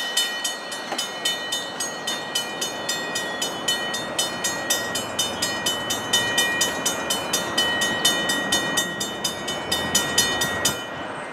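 Railroad grade-crossing bell ringing in rapid even strikes, about four to five a second, while the crossing gates lower for an approaching train. It cuts off suddenly near the end, once the gate arms are down.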